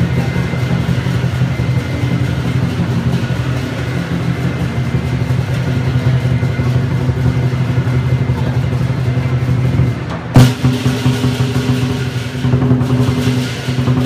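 Lion-dance percussion: a large Chinese drum beating in a fast, continuous roll with cymbals and gong, accompanying lions performing on poles. One sudden loud hit comes about ten seconds in.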